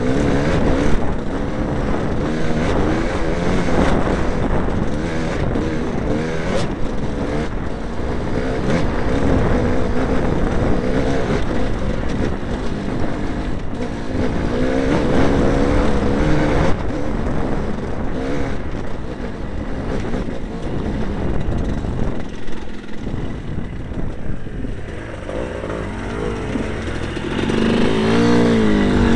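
Enduro motorcycle engine heard from on board, its revs rising and falling over rough trail, with wind and frequent knocks and rattles from the bumps. The engine eases off for a few seconds about three quarters of the way through, then revs up again near the end.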